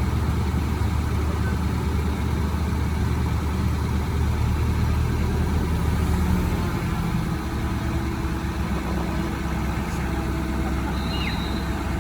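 Crane engine running steadily under load. It shifts to a lower, softer note about seven seconds in. A brief high squeak comes near the end.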